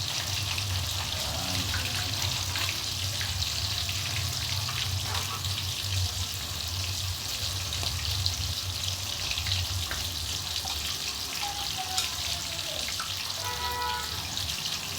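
Cooking sizzling in a frying pan on the stove: a steady crackling hiss with a low hum underneath.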